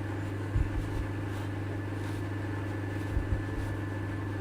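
Steady low electrical hum in a workshop, with a few soft low knocks about half a second in and again around three seconds in.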